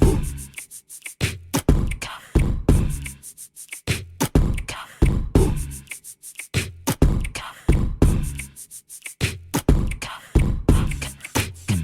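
Background music: an old-school hip-hop beat made by beatboxing, with a rhythmic run of kick-like thumps and snare-like clicks from the mouth.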